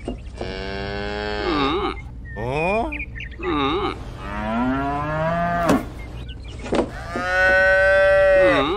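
Cattle mooing: three long drawn-out moos, the middle one rising in pitch, with a couple of shorter calls between them.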